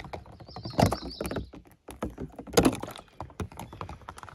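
Knocks and clunks of drink containers and ice being handled, the loudest about a second in and again at about two and a half seconds.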